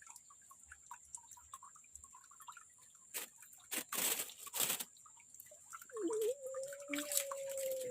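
Small drips and ticks of water, with three or four brief splashes in the middle, then a steady held tone for the last two seconds.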